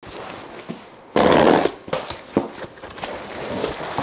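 A cardboard box is set on a stone countertop and opened. A loud half-second rush of cardboard noise comes about a second in, then several sharp knocks and the rustle of box flaps and plastic packaging.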